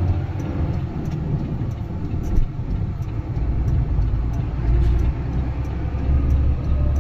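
Heavy truck's diesel engine running at low revs as the truck drives slowly, a steady low rumble with one brief knock about two and a half seconds in.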